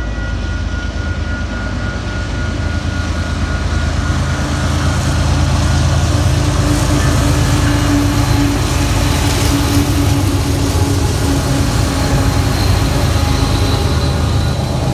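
Union Pacific GE diesel-electric freight locomotives passing close by: a heavy low rumble with a steady engine tone, growing louder over the first several seconds as the lead units arrive.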